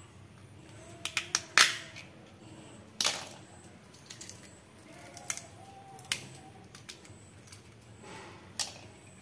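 Raw crabs being broken apart by hand: a handful of sharp cracks and snaps as shells are prised open and legs pulled off, spaced irregularly, the loudest about one and a half seconds in.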